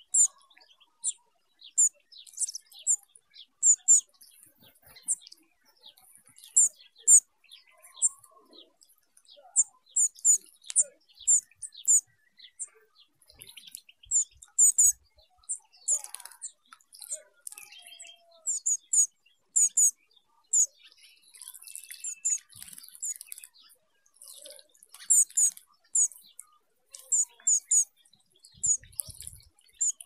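Small wild finches calling with many short, very high-pitched chirps, often in quick pairs or runs, on and off throughout.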